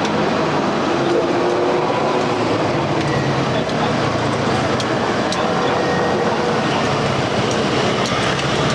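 Steady din of a busy night market: a dense wash of crowd noise and stall machinery with faint distant voices and a few small clicks.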